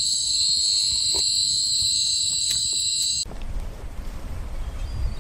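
Cicada droning, a loud steady high-pitched note with a few faint clicks, which cuts off abruptly about three seconds in. Then a steady hiss of heavy rain.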